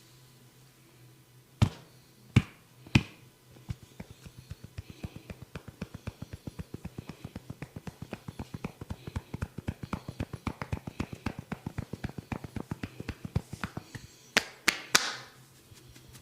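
A barber's hands tapping quickly and evenly on a head during a massage, several taps a second for about ten seconds. It is framed by a few loud, sharp snaps: three near the start and three near the end.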